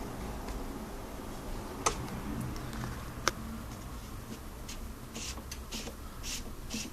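Alfa Romeo GTV V6 engine running with a steady low hum and light ticking, two sharp clicks in the first half, and several short bursts of hissing near the end.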